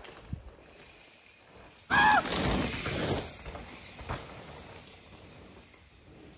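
Mountain bike rolling over a dirt trail and jump. The tyre noise comes in suddenly about two seconds in with a brief high squeal, then fades as the bike moves away, with a single knock about four seconds in.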